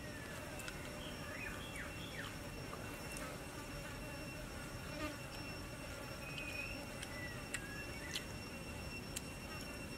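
Steady high insect drone, with a few short chirps and several faint clicks scattered through.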